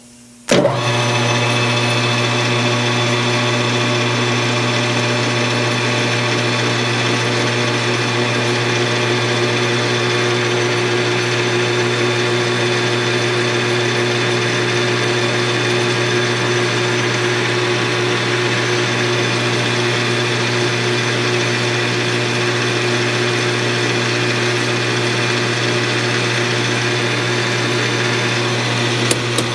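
Small metal lathe switched on about half a second in, then running with a steady, even hum as its spindle turns an eighth-inch end mill in a collet, used to cut a small cup in the end of a model-engine lifter.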